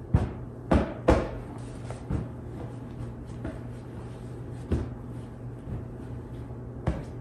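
Pillows being shaken, plumped and patted down onto a bed: a few soft thumps, three in quick succession in the first second or so, then single ones spaced out, over a steady low hum.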